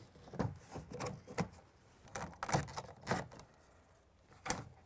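Plastic interior door panel of a GMT800 Chevrolet Silverado being pried and worked loose: a string of irregular clicks and knocks, the sharpest near the end.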